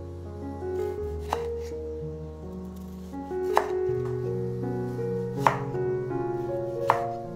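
A kitchen knife slicing through a tomato and knocking on a wooden cutting board, four sharp strikes roughly two seconds apart.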